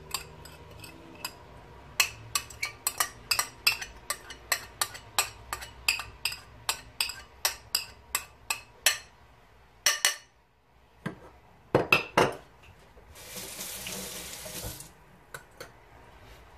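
A metal spoon clinks and scrapes against a white serving dish, about three quick clicks a second, as chopped onion and ginger are knocked off into a stainless steel pot. A few louder knocks follow, then a brief steady hiss about two-thirds through.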